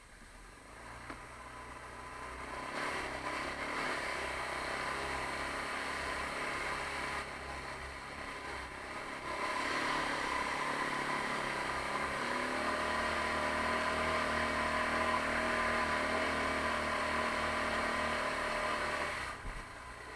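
Taotao 150cc ATV engine running while under way, building up from about a second in. It eases off briefly around the middle, then pulls louder from about halfway, revving up around two thirds of the way through, and drops back near the end.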